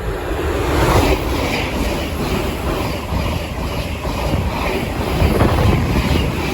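Electric passenger train passing through the station without stopping: a steady rush of wheel-on-rail noise with uneven low thumps from the wheels.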